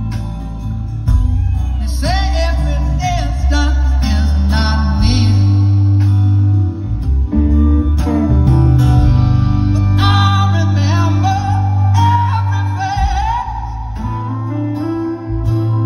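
A live band playing a slow ballad: strummed acoustic guitar, electric guitar, upright bass and keyboard, with a lead melody that slides and wavers over the top.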